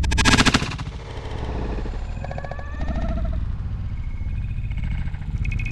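A single shotgun blast from an over-and-under shotgun right at the start, dying away within about half a second, over a steady low rumble.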